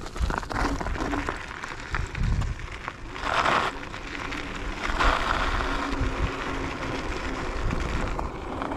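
Varla Eagle One electric scooter on chunky off-road tyres rolling down a loose gravel and dirt trail: a continuous noisy rumble with many small rattles and knocks over the stones, growing gradually louder through the ride.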